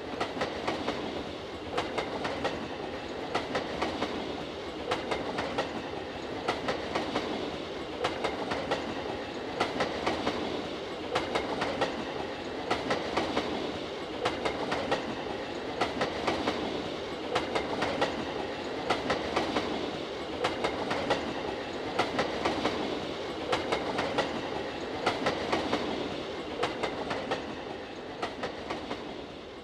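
Iron-ore freight train wagons rolling past, steel wheels clacking over the rail joints in a steady repeating rhythm of grouped clicks over a continuous rumble.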